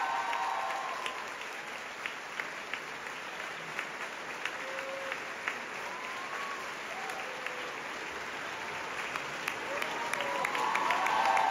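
Theatre audience applauding in a sustained dense ovation, with individual sharp claps standing out. Voices call out over it at the start and again near the end.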